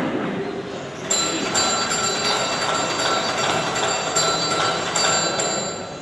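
Small brass bell struck over and over by a green-winged macaw, about two rings a second, each ring hanging on as a clear high tone. The macaw is ringing out a count, the answer to the sum 5+8 on the board.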